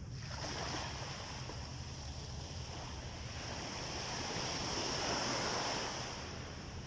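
Sea waves breaking and washing up a beach: the surf swells just after the start, is loudest about five seconds in, then eases off, over a low rumble of wind on the microphone.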